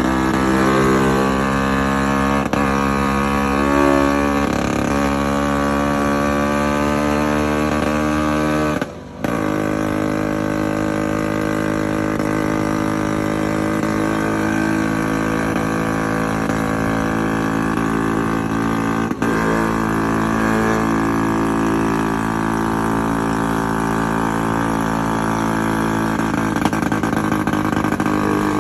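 Steady engine drone of motor scooters riding along a road, holding a near-constant pitch. There is a brief dip in the sound about nine seconds in.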